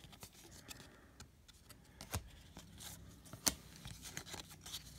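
Baseball cards being thumbed through by hand, sliding and flicking against one another: faint scattered rustles and clicks, the sharpest about three and a half seconds in.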